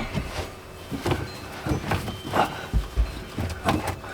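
Irregular knocks, clicks and clatter from handling work, with two heavier low thuds about three seconds in.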